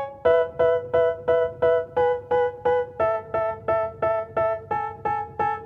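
Background music: a keyboard plays a steady run of repeated chord strikes, about three a second, with the chord changing every couple of seconds.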